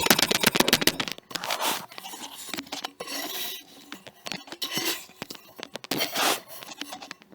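Crunchy kinetic sand being cut: a rapid run of crisp crackles for about the first second, then slower, spaced crunching and scraping.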